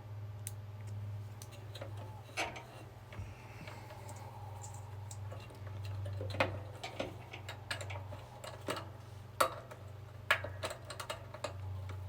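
Irregular light clicks and taps of small parts and a hand tool being worked while a new fuse holder's wires are fastened in a heat press, over a steady low hum.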